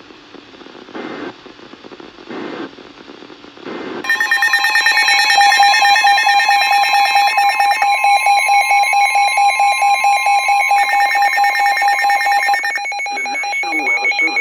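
Emergency alert tone from a broadcast alert: a loud, rapidly pulsing electronic signal of several steady pitches. It starts about four seconds in, after faint radio audio, lasts about nine seconds, and a voice begins near the end.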